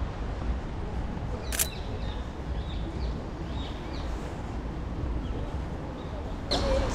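Outdoor street ambience: a steady low rumble, one sharp click about a second and a half in, and a few faint high chirps.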